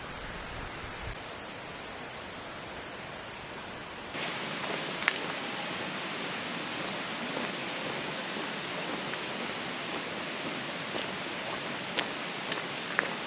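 Steady rushing outdoor noise. About four seconds in it changes abruptly to a slightly louder hiss, with a few sharp clicks scattered through it.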